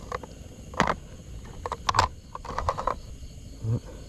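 A few sharp clicks and scuffs of hands handling a live eel and fishing line: one about a second in, a couple around two seconds, and a short run just before three seconds. Under them, night insects keep up a faint, steady high trill.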